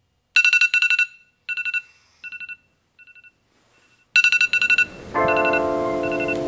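Phone alarm going off in quick bursts of rapid high beeps; the bursts fade away, then come back loud about four seconds in. Soft sustained music chords come in about five seconds in.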